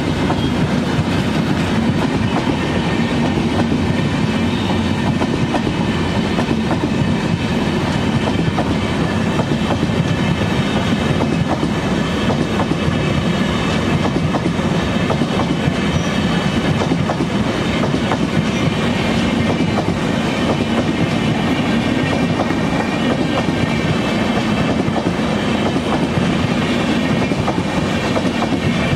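LHB passenger coaches of an express train running past at speed, a steady rumble with the wheels clattering rhythmically over the rail joints.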